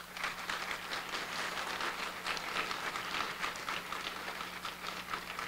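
Audience applauding: many hands clapping at once in a dense patter that eases slightly toward the end.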